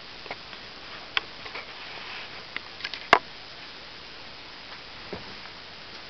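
Week-old Yorkshire terrier puppies suckling at their mother, making soft irregular clicks and smacks, with one sharper click about three seconds in, over a steady hiss.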